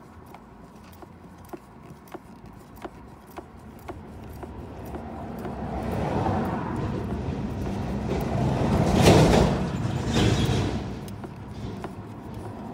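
Faint, evenly spaced ticks, about one every half second or so, as an E8 Torx bolt is turned out by hand on a long socket extension. From about four seconds in, a broad rushing noise swells up, is loudest around nine seconds in, and fades away again.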